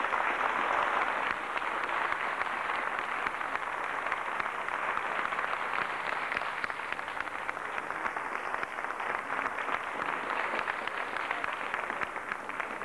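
Crowd applauding: dense, steady clapping, loudest in the first couple of seconds.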